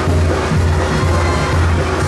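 Music with a heavy, steady bass beat, about two beats a second.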